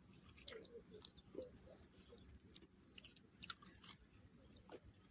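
Quiet close-up chewing and biting of food, a scatter of soft wet clicks, with faint short high chirps throughout.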